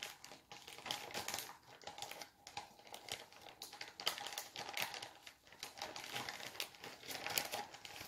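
Plastic cheese packaging crinkling and crackling irregularly as it is handled and pulled open.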